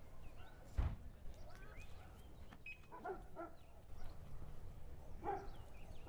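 Short animal calls: a quick group of yelps about three seconds in and another near the end, over faint small-bird chirps, with a single thump about a second in.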